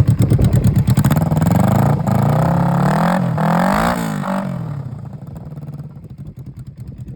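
Motorcycle engine running with no exhaust fitted, its pulses loud and open. It is revved about two seconds in, the pitch rising and then falling back, and then it settles and fades away toward the end.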